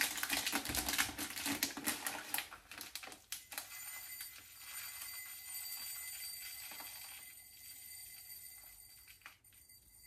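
Quick, rapid clicking and rattling as a small plastic container is handled and opened over a glass. It gives way after a few seconds to a faint, steady high-pitched ringing that fades out.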